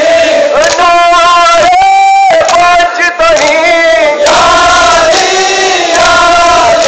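Crowd of men chanting a Muharram mourning lament in unison, loud, with long held notes that break off briefly a couple of times.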